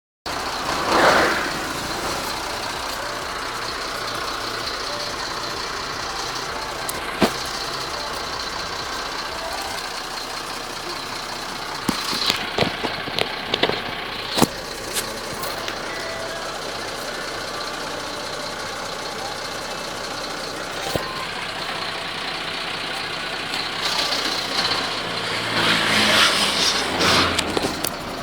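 Truck engine running steadily. There are a few sharp knocks in the middle and a louder stretch near the end.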